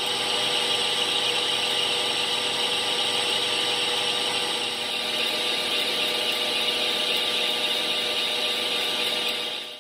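Metal lathe taking a turning cut on a metal workpiece with a carbide insert tool: a steady, high-pitched cutting noise with several steady machine tones beneath. It stops abruptly at the end.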